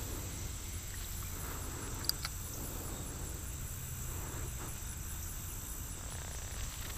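Quiet outdoor background: a steady low rumble under a faint, high insect chirp that repeats a few times a second, with a single small click about two seconds in.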